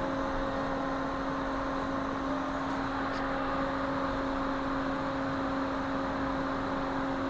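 Steady mechanical hum and hiss, with a constant low tone running underneath and no change throughout.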